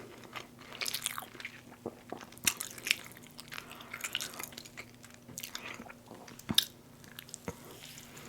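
Close-miked chewing and biting of a chicken McGriddle sandwich: irregular wet mouth clicks and short crunches at an uneven pace, over a faint steady hum.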